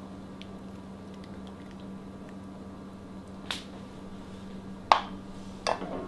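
Mushroom gravy poured from a glass bowl over a Salisbury steak on a plate: quiet wet sounds with a few light clicks and taps, the sharpest about five seconds in, over a steady low hum.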